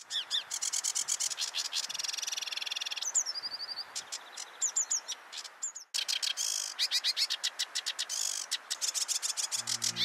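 Sedge warbler singing: a fast, chattering run of harsh ticks and churrs mixed with short whistled notes, with a brief break about six seconds in.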